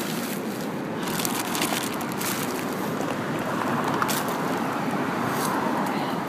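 Plastic garbage bags rustling and crinkling as hands dig through the trash inside them.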